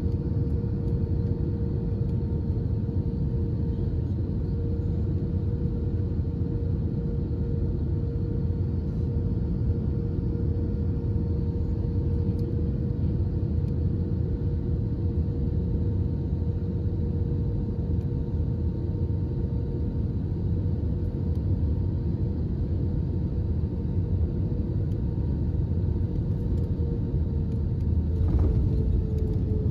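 Airbus A320 cabin noise on final approach: a steady low rumble of airflow and engines with a constant hum. Near the end the wheels touch down and the rumble grows louder as the airliner rolls along the runway.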